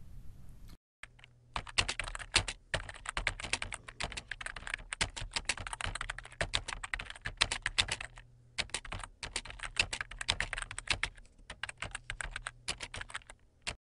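Rapid typing on a computer keyboard: quick runs of key clicks with a few short pauses, stopping abruptly near the end.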